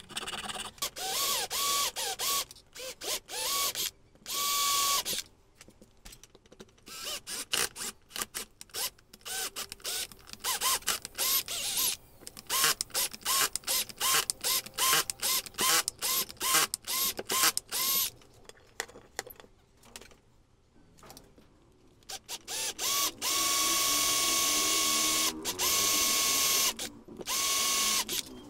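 Small electric drill run in many short trigger bursts, each a brief whine, then held running for a few seconds near the end as the bit cuts into a small metal bar.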